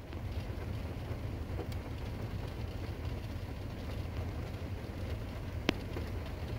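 Traffic on a rain-soaked road heard from inside a car: a steady wash of tyre and rain noise over a constant low rumble, with one sharp tap near the end.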